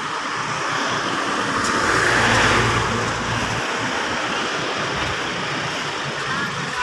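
A road vehicle driving past, its tyre and engine noise swelling to a peak about two and a half seconds in and then fading.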